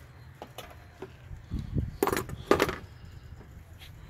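Metal hose clamps and small hand tools being picked up and handled on the plastic engine cover: a few light clicks, a dull knock, then two sharp metallic clinks about two and two and a half seconds in.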